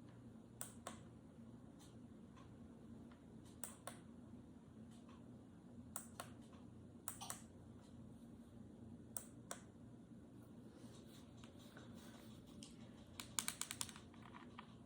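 Faint clicks of the buttons on a Bluetooth speaker alarm clock being pressed while setting the hours and minutes, often two at a time every few seconds, with a quick run of several clicks near the end.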